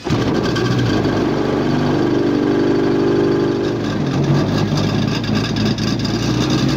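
Home-built 550cc four-cylinder flat-four model aircraft engine, made from 3W 275 cylinders, catching on a hand flip of its propeller and then running steadily.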